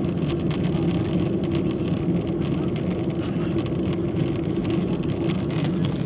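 Boeing airliner's jet engines heard from the passenger cabin during the climb after take-off: a steady drone with a low hum, and a rapid irregular crackle over it.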